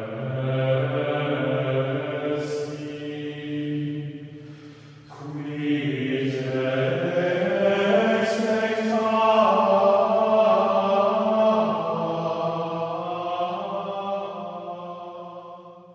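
Slow chanted singing by low voices in long held notes. The singing dips briefly about four to five seconds in, then a new phrase begins, and it fades away at the end.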